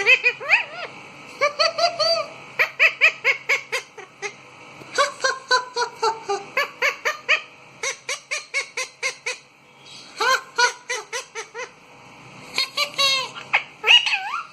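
Indian ringneck parakeet calling in quick runs of short, high, laugh-like repeated notes, about five a second, in bouts with brief pauses between them.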